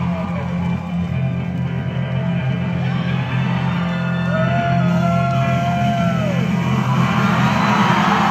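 Live rock band playing loudly through a concert PA, heard from the crowd: drums, bass guitar and electric guitar, with one held high note in the middle that slides down as it ends.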